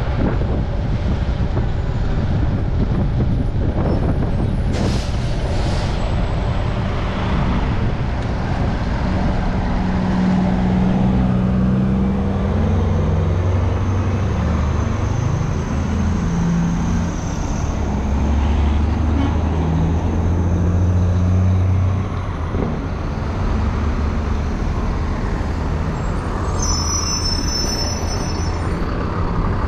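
City street traffic heard from a moving bicycle, with steady wind and road noise. A low engine drone from a nearby vehicle stands out from about a third of the way in, then cuts off abruptly about three-quarters of the way through.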